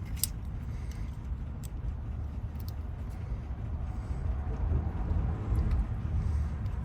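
A steady low rumble with a few faint, sharp clicks, like small lock parts being handled.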